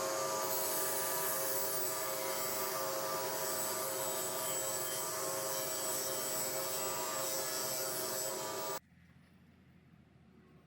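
A woodworking power tool's motor running steadily with a constant whine, cutting off abruptly near the end.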